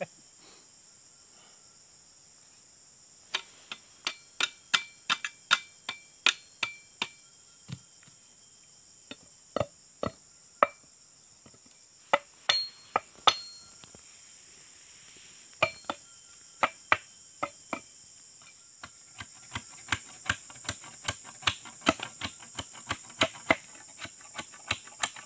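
Sharp chopping knocks of a machete striking wood, in uneven runs of about two a second with pauses, as a broken dodos (oil-palm harvesting chisel) is re-handled on a wooden pole. A steady high insect drone sounds throughout and grows louder near the end.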